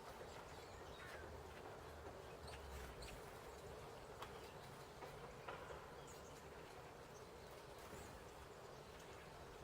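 Faint outdoor quiet with a few soft short chirps and ticks, most of them between about one and five and a half seconds in, from small birds at a winter feeder.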